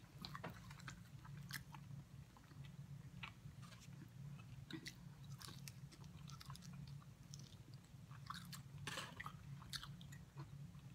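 Faint close-up chewing and biting of bone-in chicken wings, with many small irregular mouth clicks and crunches, over a steady low hum.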